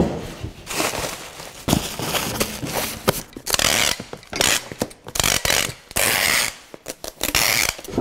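Packing tape ripping off a handheld tape gun in several long pulls as a cardboard box is sealed, with plastic bubble wrap rustling and crinkling in the first few seconds.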